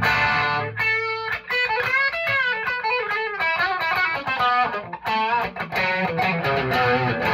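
Electric guitar, a Telecaster-style, played through a Marshall JCM 800 amp with its gain turned up: a quick single-note lead run with string bends.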